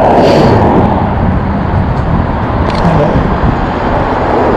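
Steady rushing road noise from riding alongside a busy traffic lane, with a car passing just at the start.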